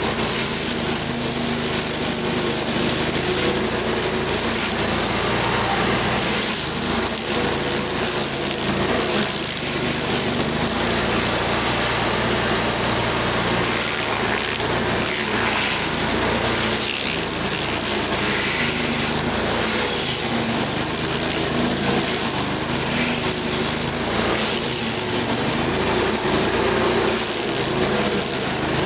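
LASKI F500H stump grinder running steadily under load, its toothed cutting wheel grinding into an ash stump. A constant engine note under the dense noise of the teeth chipping wood.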